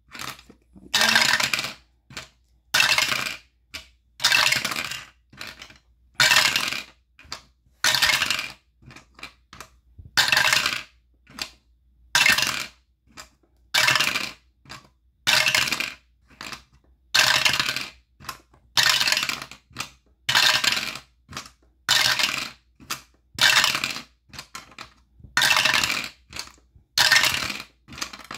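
Two eight-sided dice clattering in a dice roller, rolled over and over, about one roll every one and a half to two seconds.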